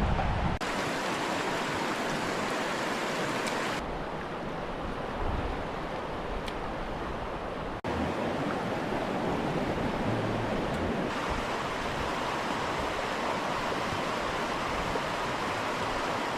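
Rushing water of a mountain trout stream: a steady wash of noise that shifts abruptly in tone about four and eight seconds in.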